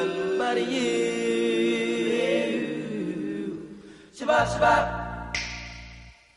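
Doo-wop vocal group singing close harmony: held chords with a voice sliding between notes. The singing fades out about three and a half seconds in, and a different passage with a steady deep tone and a hiss comes in just after four seconds.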